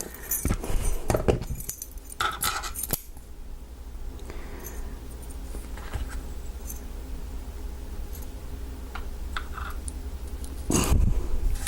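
Small metal lock parts and tools clinking and clattering as a padlock is taken apart over a pinning tray, busiest in the first three seconds and again near the end, with only a few faint ticks in between.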